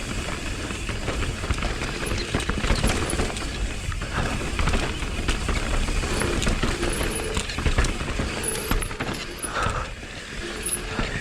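Mountain bike descending a rough dirt trail: continuous tyre rumble, wind on the microphone and the rattle and knock of the bike over roots and rocks.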